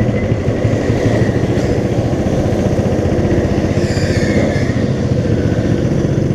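Go-kart's small petrol engine running steadily and loudly at even revs, heard from the driver's seat.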